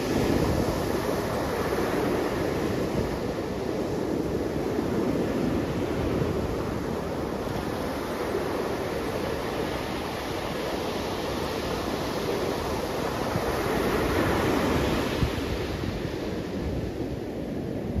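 Ocean surf: small waves breaking and washing up a sandy beach in a steady rush, swelling a little about two-thirds of the way through.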